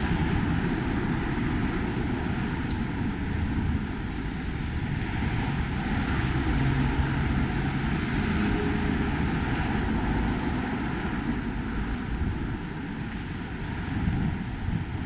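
Steady vehicle traffic noise with a low rumble.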